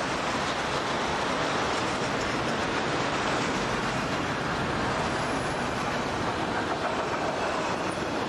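Freight train of autorack cars rolling past: a steady rush of steel wheels on rail with light clicking.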